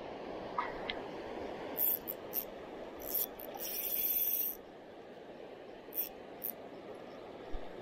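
Steady rush of river current, with a Shimano Stradic FL 1000 spinning reel being cranked: a few short high ticks and a buzz of about a second roughly halfway through.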